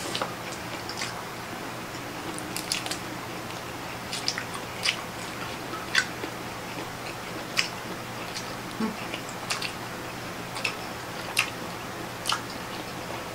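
Close-up eating sounds from octopus and shrimp eaten by hand: chewing with irregular sharp clicks and smacks, about one every second or so, over a faint steady hum.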